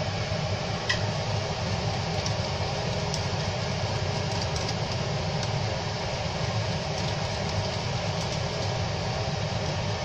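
A pot of thin khichuri boiling on the hob, heard as a steady rushing noise with a few faint pops.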